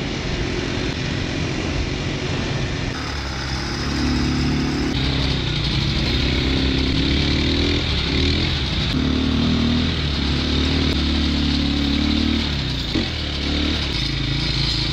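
Quad bike (ATV) engine running as it is ridden, its pitch rising and falling with the throttle, with a few abrupt changes where shots are cut together.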